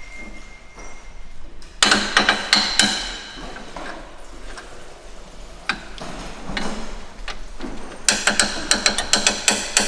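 Quick, sharp hammer blows on metal with a short ringing after each. A run of strikes comes about two seconds in, a few single blows follow, and a faster run of about five or six a second comes near the end.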